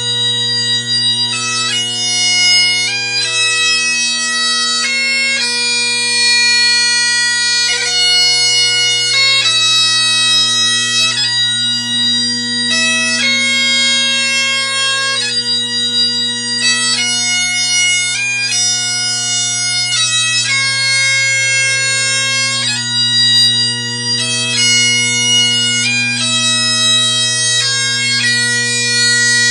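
Great Highland bagpipe playing a tune: the drones hold one steady low note without a break while the chanter melody moves from note to note above them.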